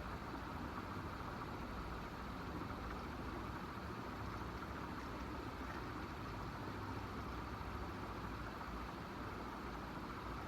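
Steady background noise with a low hum underneath, no separate knocks or rustles standing out.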